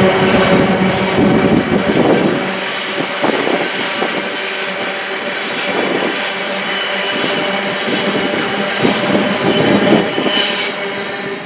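Empty biomass hopper wagons of a freight train rolling past at speed. The wheels clack over rail joints under a steady wheel squeal. A deeper rumble drops away about two and a half seconds in.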